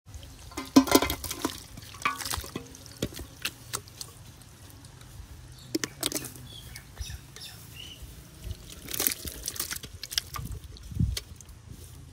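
Pepper chicken gravy being tipped out of clay pots onto a plate: wet pouring and plopping with scattered knocks and clicks of the pots.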